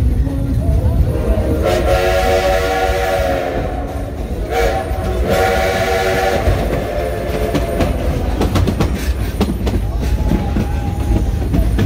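Steam locomotive whistle blowing two long blasts, each about two seconds, over the steady rumble of the moving train. After that, the clatter of the cars and wheels on the track.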